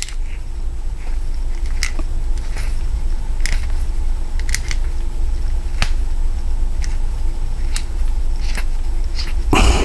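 Hand-turned cutter of a Klom tubular key machine being pushed and turned into a tubular key, cutting a depth-7 notch: small irregular clicks and scrapes about once a second over a steady low rumble, with a louder knock near the end.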